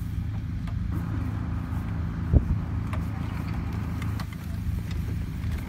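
Steady low hum of a vehicle engine idling, with one sharp thump about two and a half seconds in.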